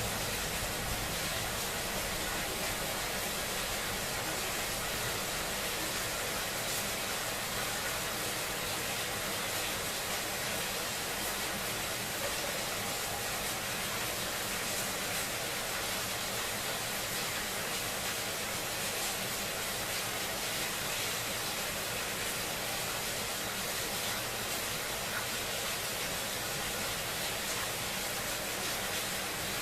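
Steady rain falling, an even hiss with no thunder or breaks.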